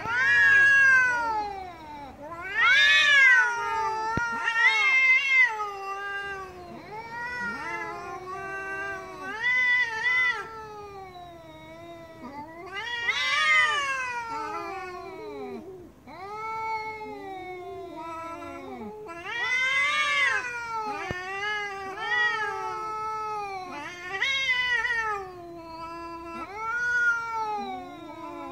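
Two tabby cats caterwauling at each other in an angry standoff: long, wavering yowls that rise and fall in pitch and overlap, swelling louder several times. This is the threat yowling of a face-off between cats.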